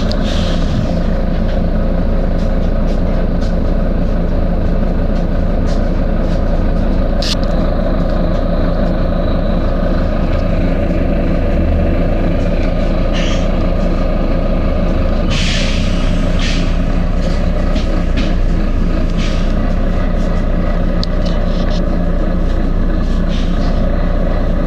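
Volvo B9TL double-decker bus with its diesel engine running steadily, broken by several short hisses of compressed air from the air system, the longest about halfway through.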